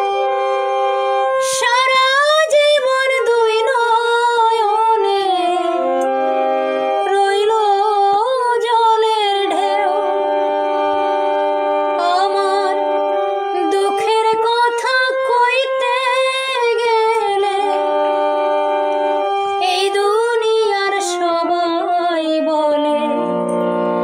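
A woman singing with long, gliding notes to a bellows-pumped hand harmonium, which sustains steady chords between her phrases.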